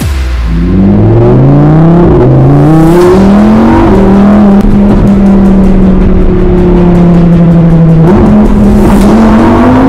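Loud sound effect of a race car engine accelerating: it revs up in several quick rising sweeps as it shifts through the gears, then holds a steady high note. Near the end it steps up and rises again.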